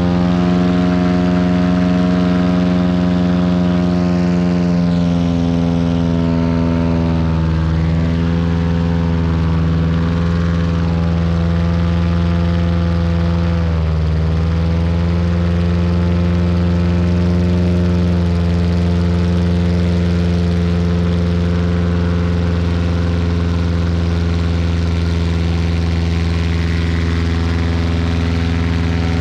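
Airboat's engine and propeller running steadily at an even speed, with two brief slight dips in speed.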